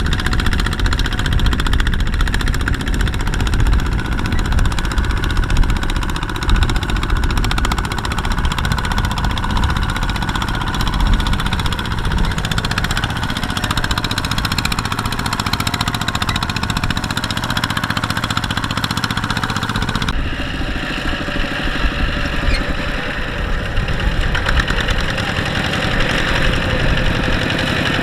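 Two-wheel power tiller's single-cylinder diesel engine running steadily, pulling a trailer loaded with rice sacks through wet paddy stubble. The engine note changes abruptly about twenty seconds in.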